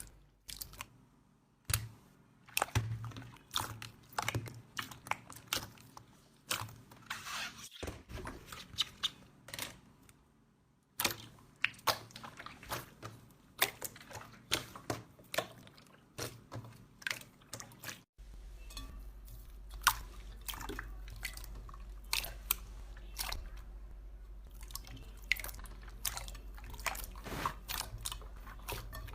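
Slime being squeezed, stretched and poked by hand, giving many small sticky pops, clicks and squelches at an irregular pace. The sound changes abruptly about 8, 11 and 18 seconds in, and a steady low hum lies under the pops in the last stretch.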